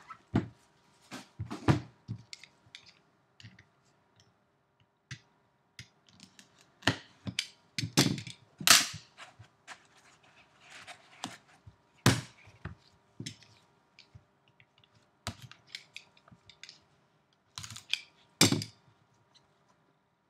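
Gloved hands handling a cardboard trading-card hobby box and the card case inside it: scattered taps, knocks and rustles as the lid is opened and the case is lifted out, with a few sharper knocks among them.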